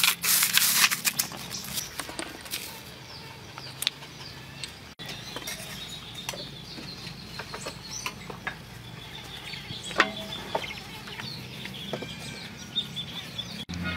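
Crushed ice being dropped by hand onto raw cockle shells, a dense crunching and rattling of ice and shell for the first two and a half seconds. After that, quieter background with scattered sharp clicks and short high chirps.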